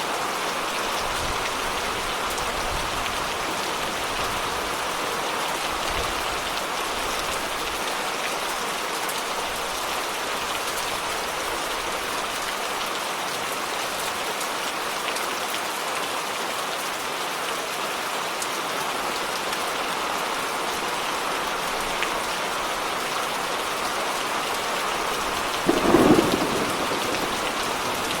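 Steady, heavy rain falling in a thunderstorm, with a single short clap of thunder near the end.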